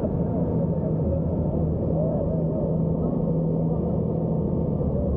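Jet boat engine running steadily with a low, even hum, under the rush of water and wind.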